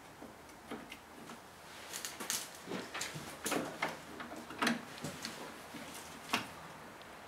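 Scattered small metallic clicks and taps of hands starting a brake line's flare nut into the port of a new master cylinder, with a sharper click about two-thirds of the way in and another near the end.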